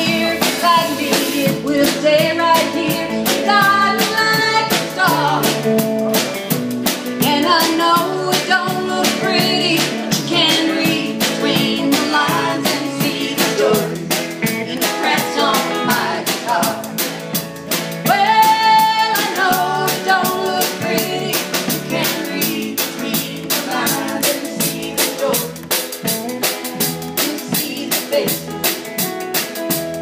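Country band playing live: a drum kit, an upright bass slapped and plucked, and acoustic and electric guitars, with a steel guitar in the lineup.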